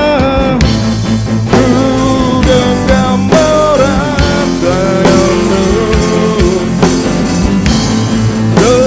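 Band music in a break between sung lines: a lead melody with bending notes over bass and a steady drum beat.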